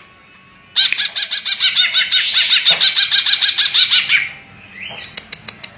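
Cucak ijo (green leafbird) singing a fast run of repeated rising-and-falling chirps, about seven a second for some three seconds. Near the end come a series of sharp clicks.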